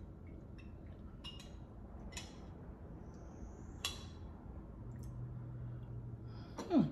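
Small clicks and glass clinks from a drinking glass with a straw and table utensils during a meal. A brief falling vocal sound comes near the end.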